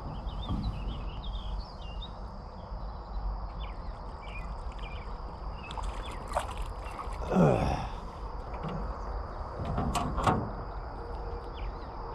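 Insects droning steadily at a high pitch over low outdoor rumble. About seven seconds in comes a short sound that slides down in pitch, and a few sharp clicks follow around ten seconds.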